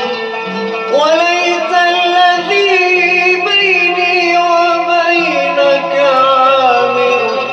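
Arabic music: a long, ornamented melodic line that swoops up about a second in and then winds slowly over steady low accompanying notes.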